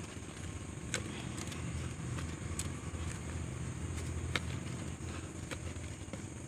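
Hands and a small tool scraping and scooping loose soil out of a shallow hole, with a few short sharp scrapes, over a steady low rumble.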